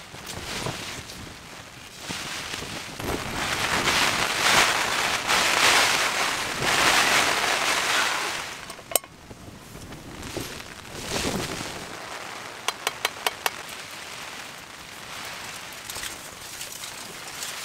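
Knife tapping on a plastic cutting board, then a gust of rain and wind on the tent fabric that swells and fades over several seconds. After it, a sharp click and a quick run of about six taps as the knife scrapes the chopped garlic off the board into the pot.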